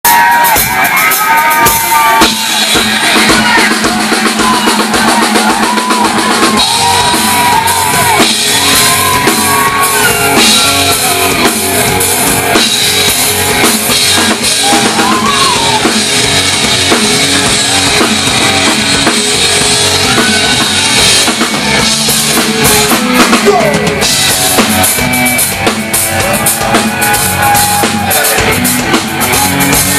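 Rock band playing loud live music, with the drum kit prominent: kick and snare under electric guitar and bass.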